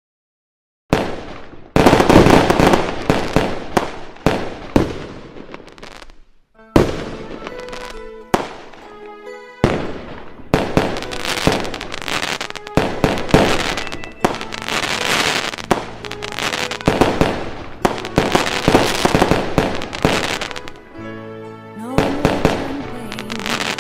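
Fireworks going off in a long, uneven run of sharp bangs with crackling tails, starting about a second in. Music comes in near the end.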